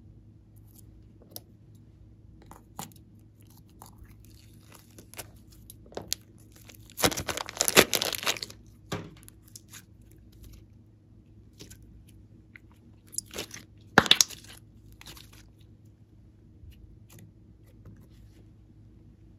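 Glossy slime being squeezed and kneaded by hand, giving a scatter of small sticky clicks and pops. There are two louder, denser runs of clicks: a longer one about seven seconds in and a shorter one about fourteen seconds in. A faint steady hum runs underneath.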